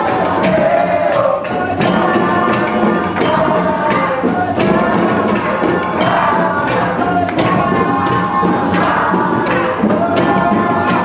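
Music: voices singing over a steady jingling percussion beat.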